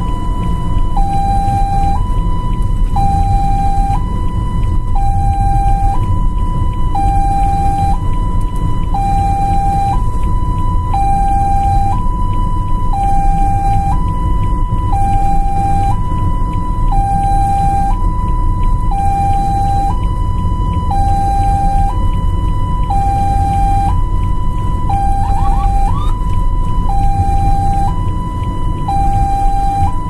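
Ambulance siren sounding a two-tone hi-lo pattern, switching between a higher and a lower tone about once a second, over a steady low rumble of engine and road noise.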